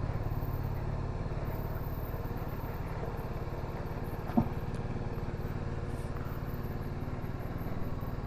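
TVS Apache RR 310's single-cylinder engine running steadily, with one short knock about four and a half seconds in.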